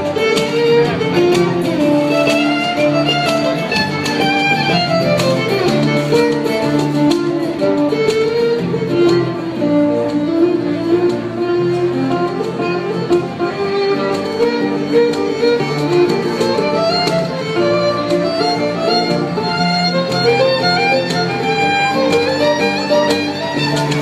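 Live acoustic string band playing: a fiddle carries the melody over strummed acoustic guitar and upright bass.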